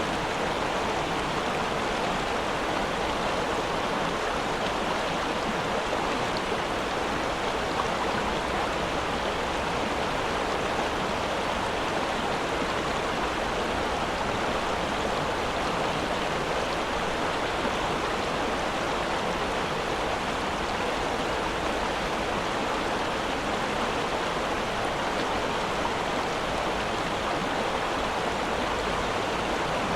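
Steady rush of flowing water from a stream, an even unbroken wash of sound.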